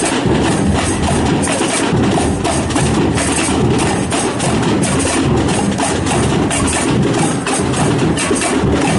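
Samba percussion music with a fast, steady beat of sharp knocking strokes.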